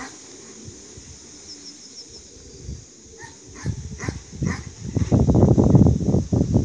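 A dog barking several times in short separate barks, followed by a loud low rumble in the last second and a half.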